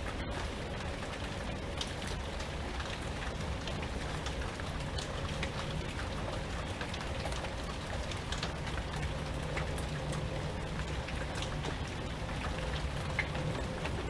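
Steady rain, with many separate drops ticking sharply on a nearby surface over a low, steady rumble.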